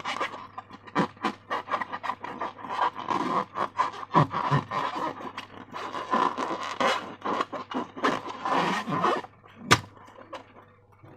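Hands squishing and stretching slime, a fast run of sticky crackles, clicks and squelches, with one sharp snap near the end.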